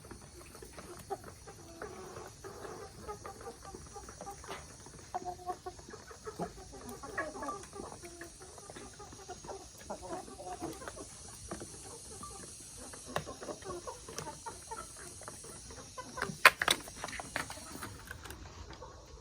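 A flock of chickens clucking, with many short calls overlapping throughout. A few sharp clicks stand out about three seconds before the end, and a steady high hiss underneath stops shortly before the end.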